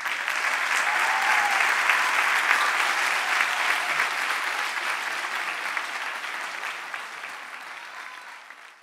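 Audience applauding, starting suddenly and dying away over the last few seconds.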